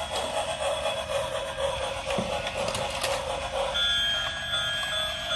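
Tinny electronic sound from battery-operated toy trains: a jumbled tune that gives way, about two-thirds in, to steady electronic tones at several pitches, like a toy's beeping alarm.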